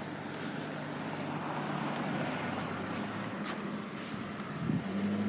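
A motor vehicle passes by, its engine and tyre noise swelling to a peak about two seconds in and then fading.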